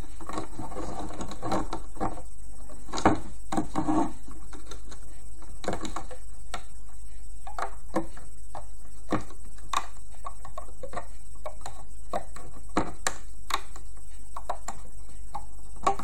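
Irregular small clicks and taps of a loom hook working against the plastic pins of a Rainbow Loom as rubber bands are looped, over a steady low hum.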